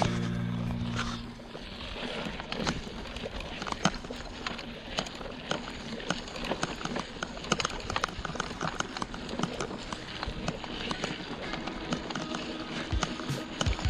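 Mountain bike rolling over a rough dirt trail: dense, irregular clicks and knocks from tyres on stones and the bike rattling over bumps. Background music fades out about a second in.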